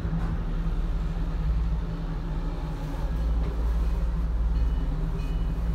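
Steady low rumble inside an aerial gondola cabin riding up its cable.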